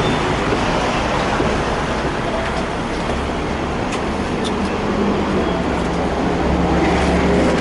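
Ride noise on the upper deck of a modernised Hong Kong double-decker tram: a steady rumble mixed with street traffic. A low hum comes in about three seconds in and grows louder near the end.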